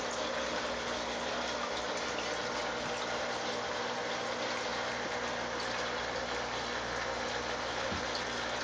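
Steady rush of water circulating in an indoor fish pond, pump-fed water splashing and trickling without a break, with a faint low hum underneath.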